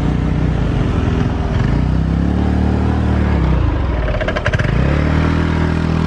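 Small Honda motor scooter's engine running and revving, its pitch rising and falling, dropping off about three and a half seconds in, then climbing again as it pulls away.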